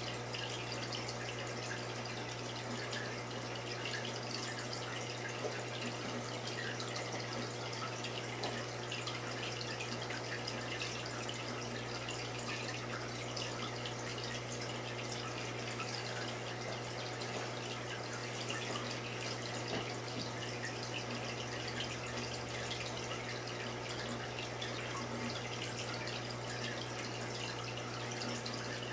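Reef aquarium's water circulation running: a steady trickling and dripping of water, over a steady low hum.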